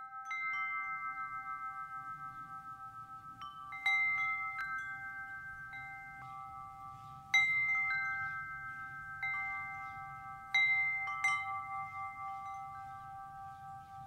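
Wind chimes struck in occasional clusters. Their metal tones ring on for several seconds and slowly die away, with a fresh burst of strikes every few seconds.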